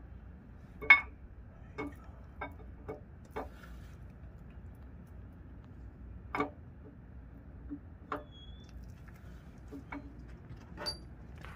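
Steel camshaft clinking and knocking against the cam bearings as it is eased by hand into and out of a Ford 5.0 V8 block: irregular sharp metal clicks, the loudest about a second in.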